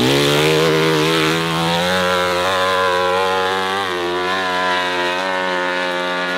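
Dirt bike engine held at high revs while climbing a steep hill, the pitch steady with small dips and recoveries.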